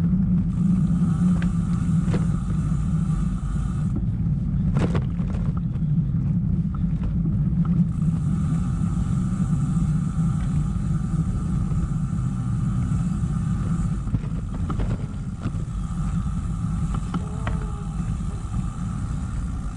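Steady low rumble of a loaded Trek 1120 touring bike rolling over a rough trail, with a few sharp knocks and rattles from the bike.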